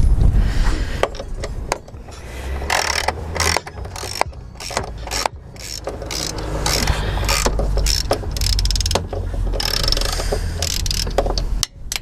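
Ratchet wrench clicking in several spells of quick strokes as the new idler pulley's bolt is tightened.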